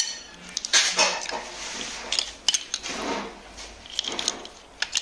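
Irregular clinks, clicks and scraping of small hard objects being handled.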